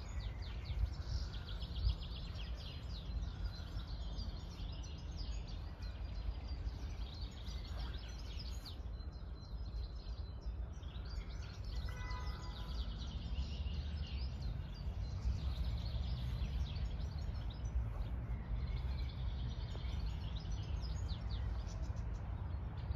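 Several songbirds singing and chirping continuously over a steady low rumble.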